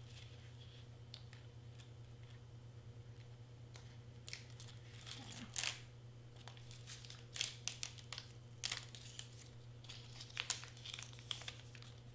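3M double-sided tape being peeled and laid onto a paper piece, with the paper handled and pressed down: intermittent rustling and crinkling, with sharper crackles through the second half.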